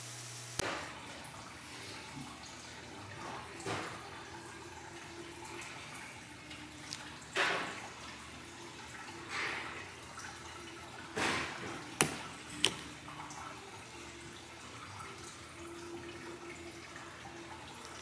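Hands handling black poly drip tubing and an orange plastic Netafim SPDT emitter installation tool: rustling and soft knocks over a steady hiss. There is a louder scrape about seven seconds in, and two sharp plastic clicks about a second apart roughly two-thirds of the way through.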